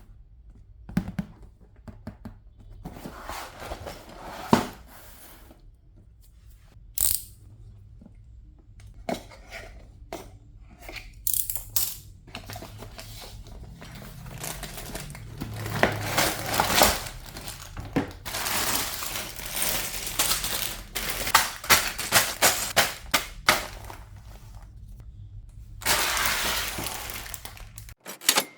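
Loose plastic Lego pieces clattering and clicking as they are handled and sorted, with scattered sharp clicks and longer stretches of dense rattling and rustling.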